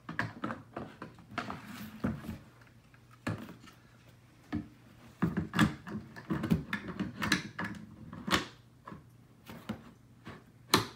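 Plastic skateboard parts handled and fitted together: irregular clicks, taps and clunks as a skate truck with its wheels is set onto the plastic deck, with a sharp knock near the end.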